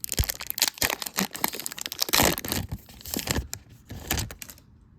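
Foil wrapper of a Pokémon card booster pack being crinkled and torn open: a quick run of sharp crackles that stops about four and a half seconds in.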